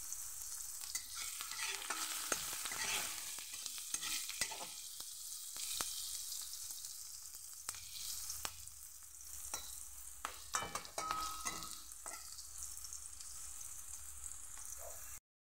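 Oil sizzling in a metal wok as sliced vegetables and green chillies fry, with a metal spatula clicking and scraping against the pan as it stirs. The sound cuts out briefly just before the end.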